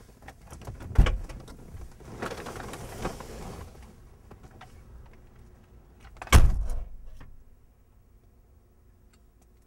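A car's passenger door opens with a clunk about a second in, with rustling as a passenger climbs out. The door is then slammed shut a little after six seconds in, the loudest sound.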